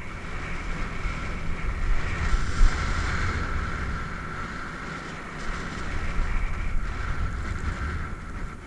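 Wind rushing over the camera's microphone as the skier runs downhill, a heavy low rumble, with the hiss and scrape of skis over snow.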